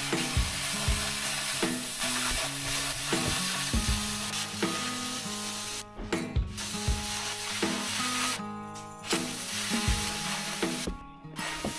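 Oxyacetylene cutting torch hissing and sizzling as it cuts quarter-inch steel, dropping out briefly a few times, over background music with a steady beat.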